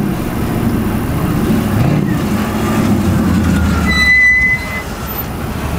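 1998 GMC race truck's engine running and revving as the truck drives up close, with a short high squeal about four seconds in.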